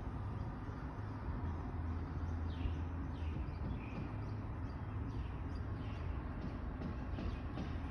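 Birds chirping, short high falling calls repeated more and more often from about two and a half seconds in, over a steady low hum.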